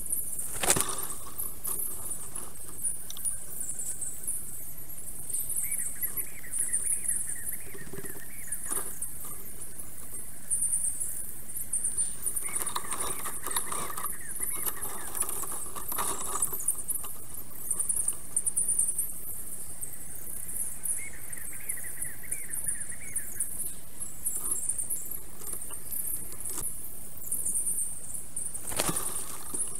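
Sped-up forest sound from a nest-camera microphone: a dense, high-pitched chatter and crackle, with passages of mid-pitched calling now and then. Sharp clicks come about a second in and near the end.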